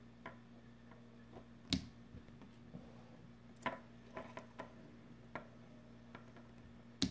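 Scissors clipping the tiny motor plugs off thin motor wires: a few sharp snips, the loudest about two seconds in and near the end, with lighter clicks between.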